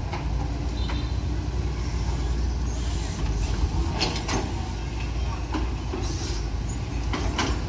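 Caterpillar 320D long-reach excavator's diesel engine running steadily under load as the long arm works the bucket in the canal. Several short knocks and clatters come in the second half.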